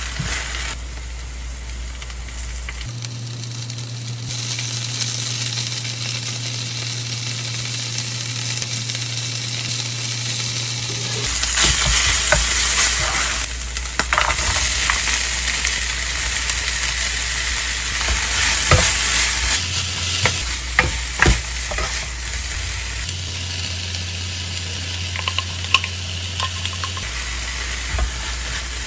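Food sizzling in a hot frying pan while it is stirred, with scattered clicks of a utensil against the pan.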